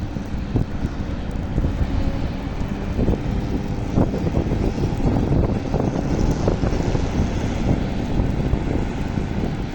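Steady heavy engine rumble from snow-clearing vehicles (runway plow trucks and a spreader) at work, with wind buffeting the microphone.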